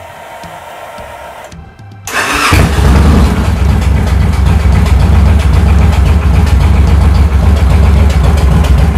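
A 2007 Victory Vegas's V-twin engine is started: after about two seconds of a quieter steady hum, it fires up suddenly and settles into a steady, even idle.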